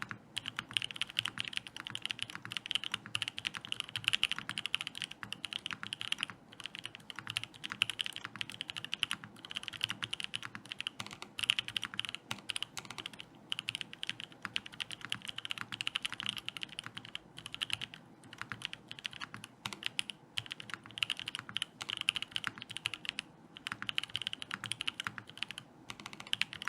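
Steady fast typing on a TGR Jane V2 CE custom mechanical keyboard fitted with lubed Gazzew Boba switches, lubed Cherry PCB-mount stabilisers and GMK keycaps: a dense run of crisp key clacks, with a few brief pauses.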